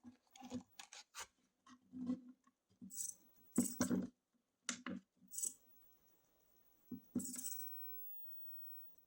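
Irregular small clicks, taps and brief rubbing from hands handling a small plastic RC crawler truck, Axial SCX24.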